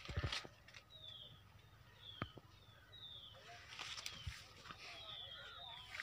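Birds calling in an orchard: many short, high chirps that each fall in pitch, repeated every half second or so, with some lower warbling calls from other birds. A few sharp knocks, the loudest right at the start and another about two seconds in.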